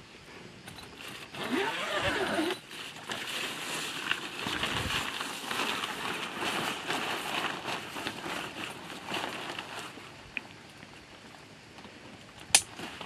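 Clear plastic window panel of a boat tent being unzipped and pulled away from the mosquito mesh, the stiff plastic sheet crinkling and rustling. One sharp click near the end.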